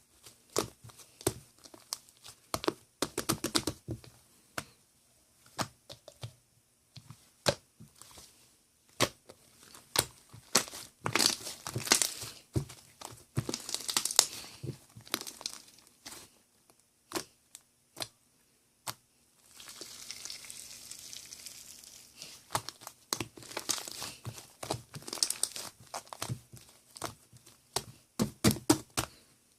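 Crinkling and tearing handling noises with many sharp clicks and taps, like material being crumpled and torn up close. A steady hiss lasts about three seconds, starting about two-thirds of the way through.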